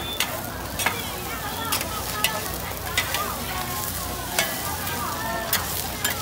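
Oyster omelet frying on a hot griddle, a steady sizzle broken by sharp metal clicks of a spatula against the griddle about once a second.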